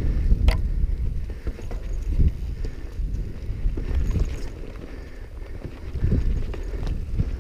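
Mountain bike riding fast over rocky singletrack: the tyres rumble over rock and dirt, with irregular knocks and rattles from the bike as it hits bumps and roots, and a sharp click about half a second in.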